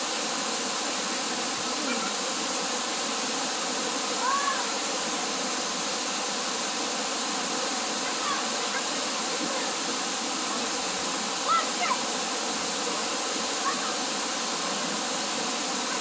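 Waterfall's steady rush of falling water splashing onto rocks close by, with a few short high chirps over it. The loudest chirps come about three-quarters of the way through.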